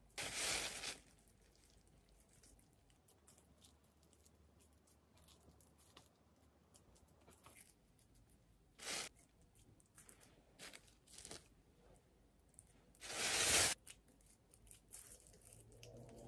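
Plastic wrap and a plastic bag crinkling in three short bursts while ground meat is handled by hand: one about half a second in, one about nine seconds in, and the loudest near thirteen seconds. Faint small rustles and taps come in between.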